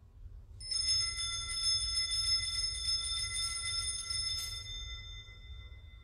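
Altar bells shaken in a quick, continuous peal, starting just under a second in and fading after about four seconds. The peal marks the elevation of the consecrated host at Mass.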